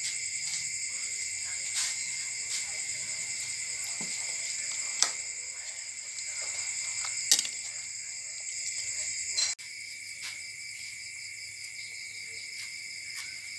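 Steady chorus of night insects, crickets chirring at several high pitches, with two sharp clinks of a metal ladle against the soup pot, about five and seven seconds in.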